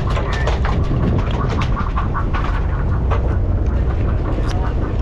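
Steady low rumble of wind and boat noise on a fishing boat's deck, with many scattered sharp clicks and taps from handling fishing tackle as a bait is hooked and cast with a conventional reel.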